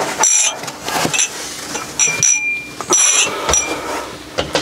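Drinking glasses clinking and ringing as they are handled and set down, about four times, with one clear ring held briefly a little after the middle.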